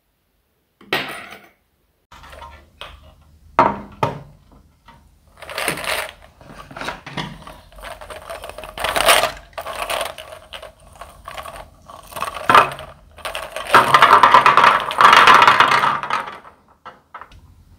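Small shiny plastic eggs rattling in a mesh net bag, then clattering and tumbling out into a clear plastic tray, with a dense run of clatter near the end as they spill out.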